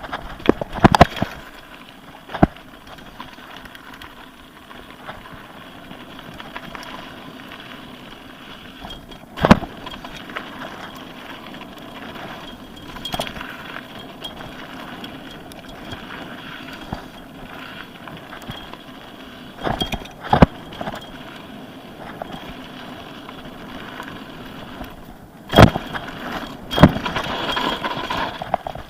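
Mountain bike being ridden down a rough trail: a steady rush of tyre and wind noise, broken by sharp clattering knocks as the bike hits bumps, several near the start, one near ten seconds, two near twenty seconds and two near the end.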